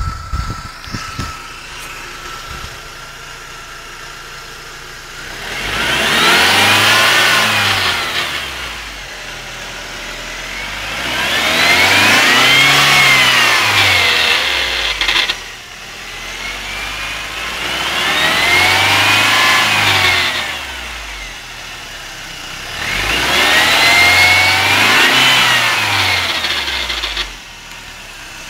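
BMW E46 318i engine revved up from idle and let fall back four times, the pitch rising and falling each time, with the strange noise that was traced to a faulty DISA intake valve.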